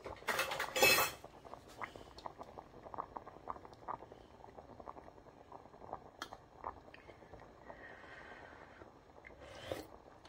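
Light clicks and clinks of a plastic spoon against a stainless-steel cooking pot as a taste of stew is scooped out, scattered and irregular. A short, louder rustling clatter comes near the start.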